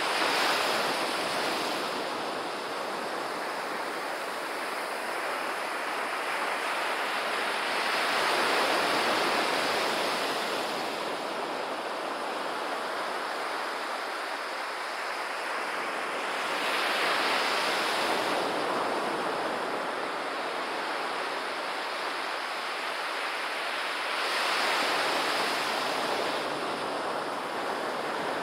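Ocean surf breaking and washing up a sandy beach, a steady rush that swells louder about every eight seconds as each wave comes in.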